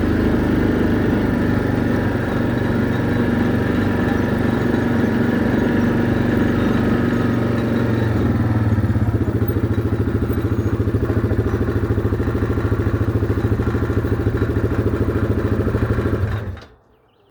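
Small vehicle engine running, settling to a steady idle about halfway through, then switched off about a second before the end.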